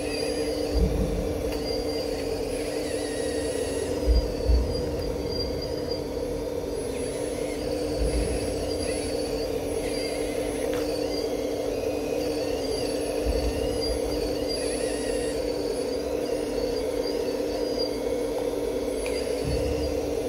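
Radio-controlled model excavator running: a steady electric motor whine with higher whining tones that shift as the machine works, and a few dull low thumps about a second in and around four seconds in as the bucket digs.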